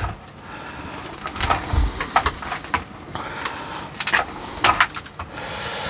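Bonsai cutters snipping at a small yew tree: a series of sharp clicks, with the needles and grass rustling under the hands.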